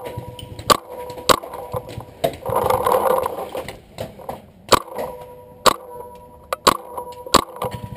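Paintball markers firing: sharp single pops at uneven spacing, the loudest four in the second half, with a short rushing noise about two and a half seconds in.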